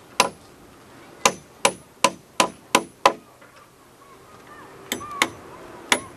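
Hand hammer nailing a wooden cross onto a wooden roof beam: sharp, ringing metal-on-metal blows. After one blow comes a quick run of six at roughly two to three a second, then a short pause and three more.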